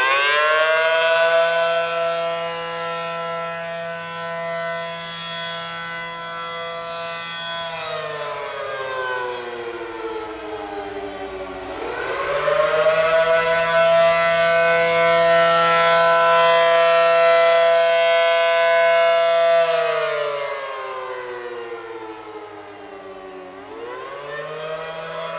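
ACA Allertor 125 rotating electromechanical siren with a 9/12-port chopper, sounding its two-tone chord in a slow wail, the attack signal. The pitch holds high, slides down about a third of the way in, climbs back up and holds again, then falls once more and begins to rise near the end. The loudness swells and fades as the rotating horn sweeps past.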